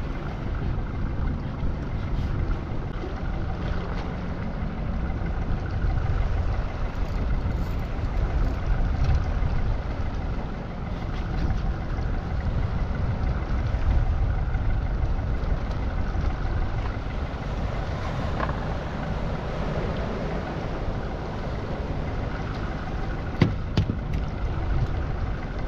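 Steady low rumble of a small fishing boat at sea, with wind and water noise, and a single sharp click about 23 seconds in.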